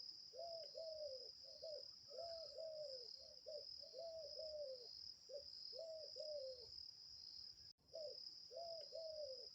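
Dove cooing: a steady series of short arched coos, mostly in pairs, with a continuous high insect trill behind.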